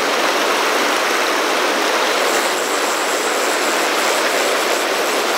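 Turbulent pocket water of a fast, rocky mountain river rushing and churning over boulders: a steady, unbroken rush of whitewater.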